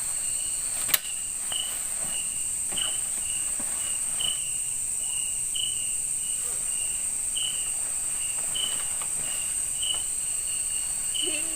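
Night-time insect chorus in a tropical forest: a steady high shrill drone with a short chirp repeating about two or three times a second. There is one sharp click about a second in.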